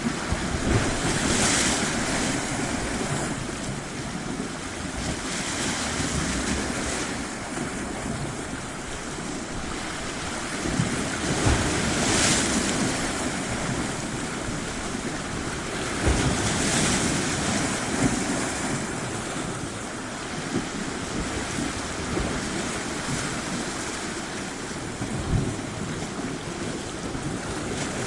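Surf washing onto a shore: a steady rush of water that swells and eases every few seconds, with wind on the microphone and a few short low bumps.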